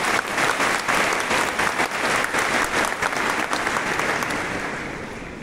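Crowd applauding, many hands clapping at once, the clapping dying away near the end.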